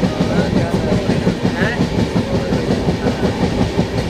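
Passenger train carriage running along the track: a steady rumbling rattle with a continuous rhythmic clickety-clack of the wheels over the rails.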